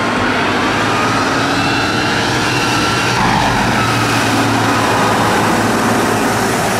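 Heavy eight-wheeled truck's engine running steadily under load as it drives across a muddy track.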